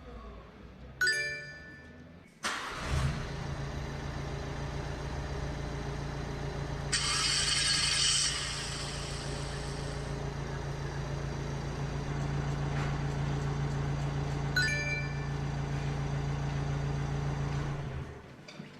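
A van engine starts with a sudden burst and idles steadily, then stops shortly before the end. A short electronic beep sounds about a second in and again about three-quarters of the way through, and there is a loud hiss lasting about a second around seven seconds in.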